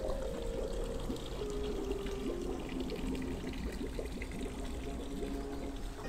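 Water pouring and trickling steadily into a garden pond, a continuous splashing wash.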